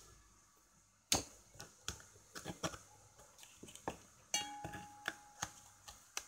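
Ice cubes being knocked loose with a knife and dropped into a drinking glass: a run of sharp clicks and knocks. Just past four seconds in, the glass rings with a clear ding that lasts about a second.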